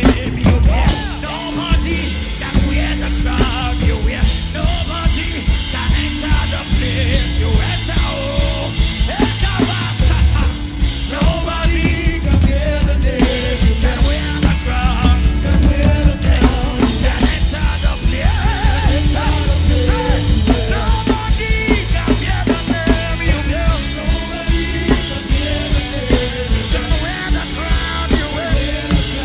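Live worship band music led by an acoustic drum kit, with heavy bass and singing.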